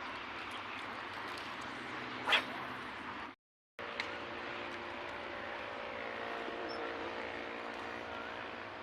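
A dog barks once, sharply, about two seconds in, over a steady background hiss. The sound drops out for a moment just after, then a steady low hum runs on, with a few faint squeals near the end.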